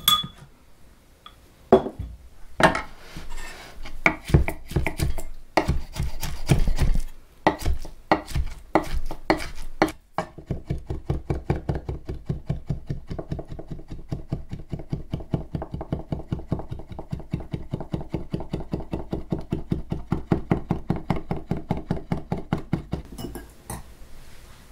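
Chef's knife chopping mugwort on a wooden cutting board, mincing it to a paste: scattered strokes at first, then from about ten seconds in a long, fast, even run of chops.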